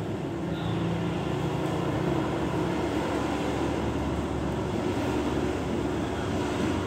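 Steady low background rumble with no distinct events, with a faint hum in the first few seconds.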